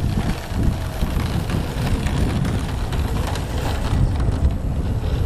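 Strong wind buffeting the microphone, a heavy gusting rumble.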